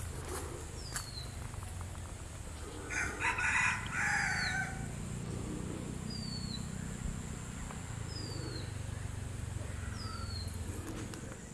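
A rooster crows once, about three seconds in, the loudest sound. A high, short falling bird chirp repeats about every two seconds, over a steady low rumble.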